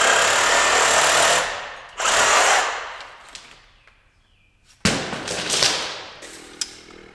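Reciprocating saw cutting through thick electrical feeder cable in three short runs: a long one at the start, a shorter one about two seconds in, and another about five seconds in. Each run starts and stops abruptly.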